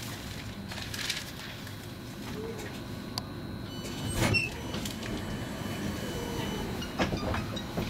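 Cabin sound of an Sm5 (Stadler FLIRT) electric commuter train rolling slowly: a steady low running rumble with a thin steady whine in the middle, and a few knocks about four seconds in and near the end.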